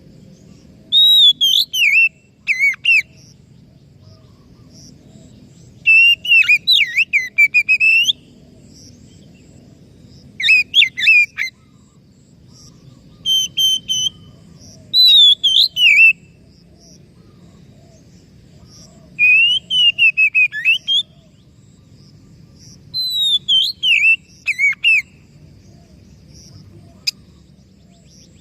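Oriental magpie-robin (kacer) singing in full song: loud, clear whistled phrases of one to two seconds that glide and warble, with quick high chattering notes mixed in, repeated every few seconds. A faint steady low hum sits underneath.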